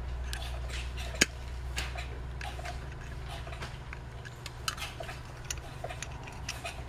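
Small metallic clicks and ticks as needle-nose pliers work an old, stiff wire retainer clip onto the brass float pin of a Motorcraft 2150 carburetor float. One sharper click comes a little over a second in. A steady low hum runs underneath.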